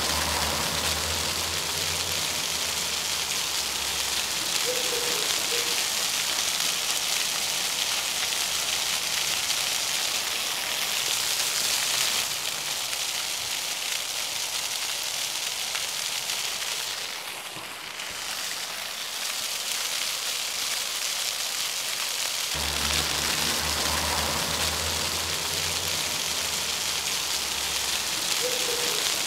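Water jets of an illuminated floor fountain splashing onto wet paving, a steady hissing spray that briefly drops in level about two-thirds of the way through.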